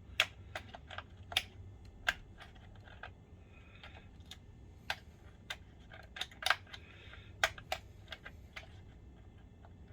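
Irregular sharp clicks and taps of a small hand tool working at a stuck screw in a plastic projector housing, with brief bits of scraping.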